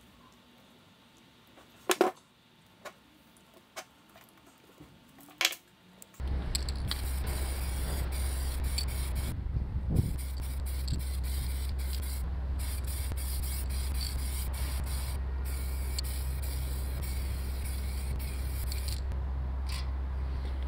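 Compressed-air spraying starts about six seconds in after a few clicks and knocks. It is a loud hiss that cuts out briefly several times, over a steady low machine hum.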